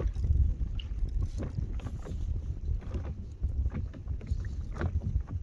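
Wind rumbling on the microphone, with irregular small knocks and splashes of water.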